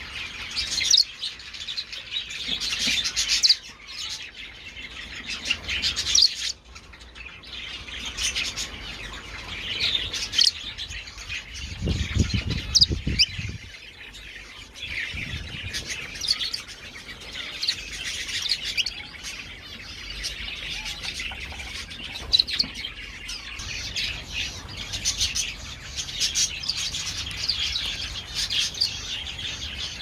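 A mixed aviary of small finches and parakeets chirping and calling, many short overlapping chirps all the way through. About twelve seconds in there is a brief low rumble lasting a second or so.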